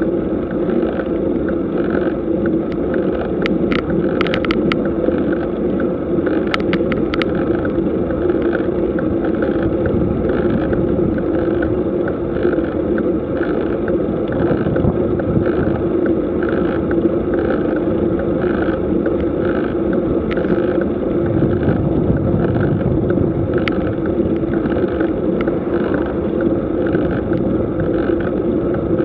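Steady rushing road and wind noise from a bicycle climbing at a steady pace, recorded from a camera mounted on the bike, with a few sharp clicks about three to seven seconds in.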